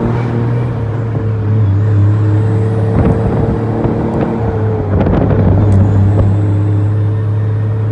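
Freightliner FLD120 Classic truck's diesel engine pulling steadily at a constant pitch as the truck drives, heard close to its exhaust stack. A few light knocks and rattles come through about midway.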